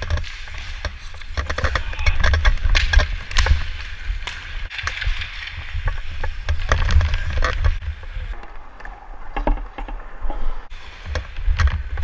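Ice hockey skating heard from a body-worn camera: wind rumbling on the microphone as the skater moves, the hiss of skate blades scraping the ice, and frequent sharp clacks of hockey sticks and puck.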